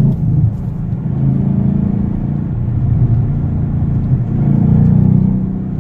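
2015 Mustang GT's 5.0 Coyote V8 running under way through an SVE stage 2 exhaust with the X-pipe resonator deleted and straight-through glasspack mufflers, heard from inside the cabin. The engine note rises in pitch about a second in and again about four seconds in.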